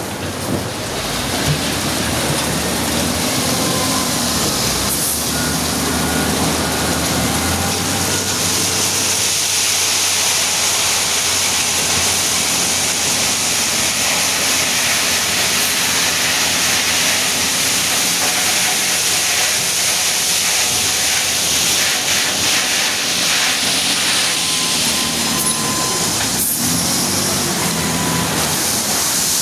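Diesel engine of a wheel loader running steadily under work, with a strong hissing noise through the middle stretch. Faint beeps can be heard near the start and again near the end.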